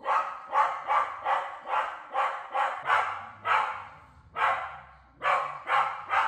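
Dog barking repeatedly, about two sharp barks a second, with a brief pause near the middle.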